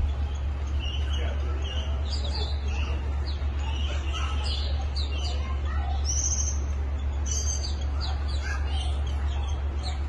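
Small birds chirping in quick, short, high-pitched calls throughout, over a steady low hum.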